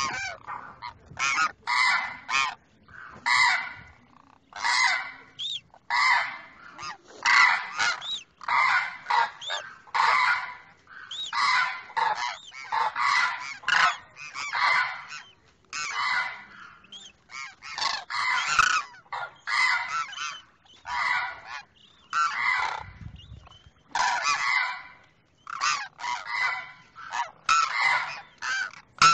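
Demoiselle cranes calling, a pair answering each other with short honking calls repeated about once or twice a second, with brief gaps.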